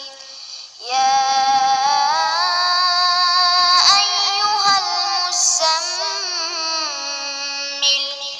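Solo singing voice with a processed, electronic edge, holding long notes that slide from pitch to pitch. It drops almost out for the first second, then comes back in.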